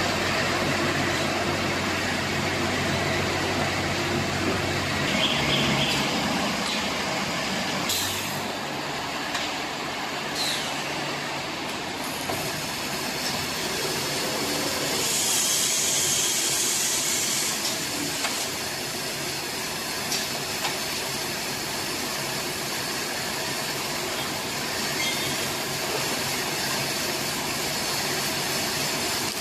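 Hay baler machine running steadily, with a burst of high hiss for a few seconds around the middle.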